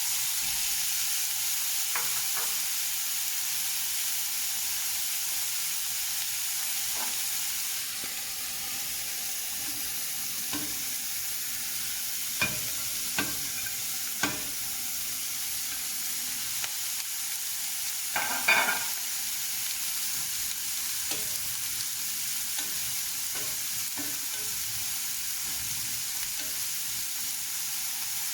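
Vegetables sizzling steadily in hot oil in a sauté pan as they are stirred. A few sharp utensil knocks on the pan come about halfway through, and the loudest clatter is a little later.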